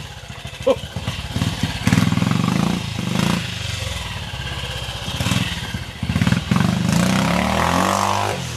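Old trial motorcycle's engine revving in short bursts, the throttle opened and shut again and again as it climbs a rough wooded slope.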